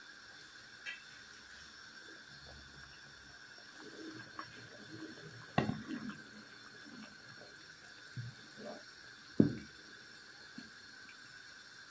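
Red kuri squash soup bubbling at a simmer in a pot, with scattered soft pops and a couple of sharper knocks, the loudest near the end as a wooden spatula stirs it.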